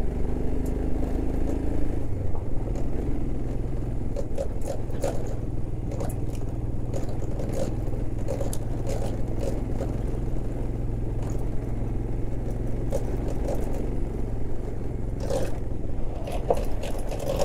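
Royal Enfield Himalayan's single-cylinder engine running steadily as the bike rides a rough gravel track, with scattered clicks and rattles from the bike jolting over the stones.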